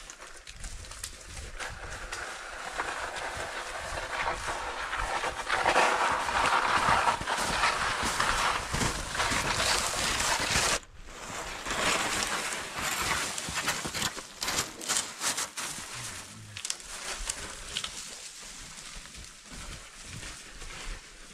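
Footsteps crunching through wet spring snow and forest litter, an uneven run of steps. They cut off abruptly about eleven seconds in, then go on more sparsely.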